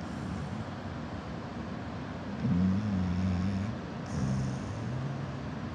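Pit bull snoring in its sleep: two low-pitched snores of about a second each, one about two and a half seconds in and the next just after four seconds, over a steady background hiss.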